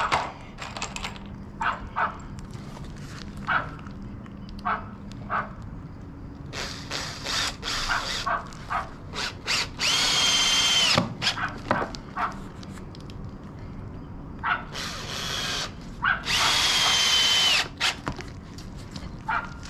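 Cordless drill running into a wooden board: a few short bursts, then two longer runs of about a second or more, each with a steady high whine. A few light knocks come before it in the first few seconds.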